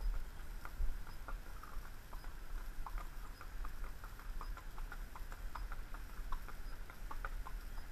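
A grey horse's hooves clip-clopping on pavement under a rider, a quick irregular patter of sharp clops, over a steady low rumble.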